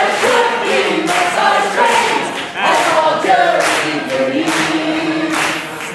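A group of voices singing together, several pitches overlapping.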